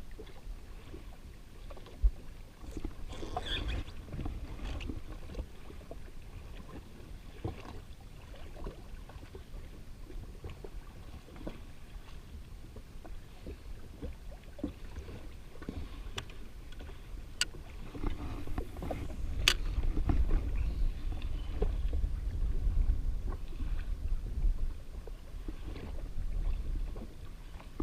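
Wind rumbling on the microphone and water lapping against a drifting jet ski, louder in the second half, with scattered small clicks and taps.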